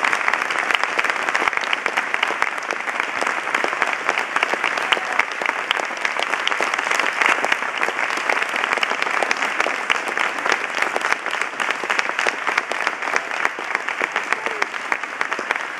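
Audience applauding: a steady, dense clatter of clapping that eases slightly toward the end.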